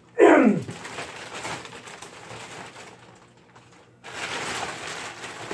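Thin plastic bag rustling and crinkling as the packaging around a plastic header board is handled. About a second in, a short, loud squeal falls sharply in pitch. The rustling dies down and then starts again near the end.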